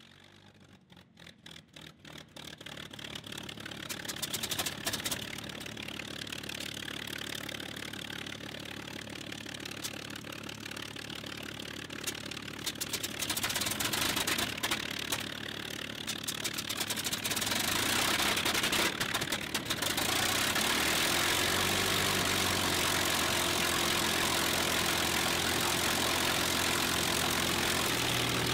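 The highly modified Rolls-Royce Merlin V12 of a P-51D Mustang air racer starting up. It fires as a quick string of separate pops for the first few seconds as it catches, then runs rough and grows louder in steps before settling into a steady idle near the end.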